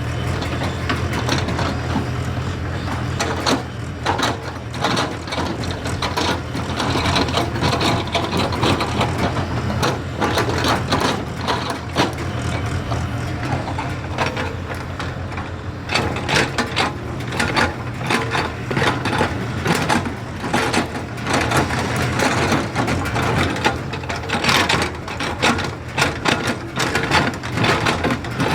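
JCB excavator's diesel engine running steadily under load, with frequent irregular knocks, clanks and rattles throughout.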